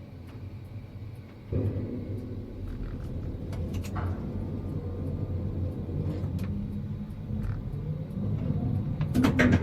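Drive machinery of a Liebherr 112 EC-B tower crane, heard from the operator's cab. A low hum with shifting tones starts abruptly about a second and a half in. A few clicks follow, and a cluster of sharp knocks comes near the end.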